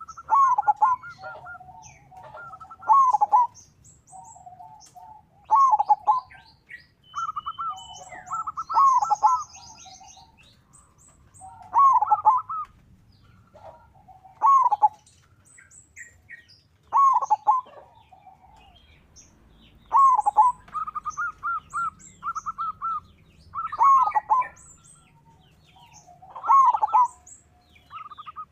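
Zebra dove (perkutut) singing: a quick stuttering run of short notes, then a lower rolling coo, with the phrase repeated about every three seconds. Faint high-pitched chirping goes on behind it.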